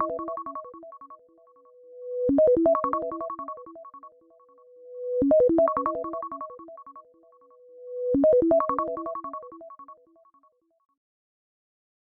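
iPhone iOS 17 ringtone: a short keyboard-like melody of quick notes, played four times about every three seconds, each repeat brought in by a swelling held tone. It fades out near the end.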